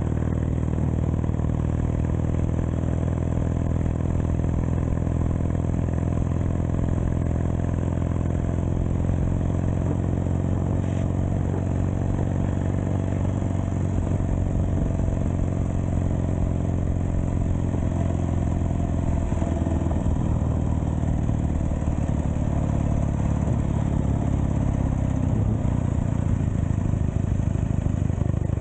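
Engine of a 1920 Douglas W20 motorcycle, a flat-twin, running steadily while the bike cruises at road speed. The engine note shifts about two-thirds of the way through.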